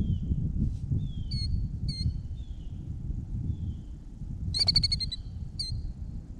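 Killdeer calling: a series of shrill, high notes and short downslurred calls, with a louder trilled call about two-thirds of the way in. A low wind rumble on the microphone runs underneath.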